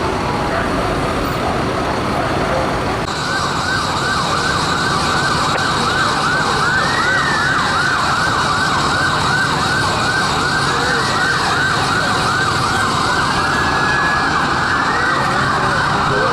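Fire engine sirens over heavy traffic and engine noise. About three seconds in, a fast warble starts, repeating two to three times a second, with a second siren wailing slowly up and down over it every few seconds.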